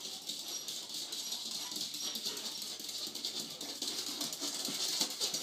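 A small excited dog scurrying about on a wooden floor, its claws making rapid clicking over a steady hissy noise.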